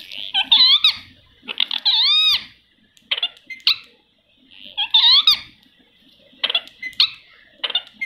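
Indian ringneck parakeets giving a string of squeaky calls that rise and fall in pitch, in short bursts with pauses between, one longer call about two seconds in.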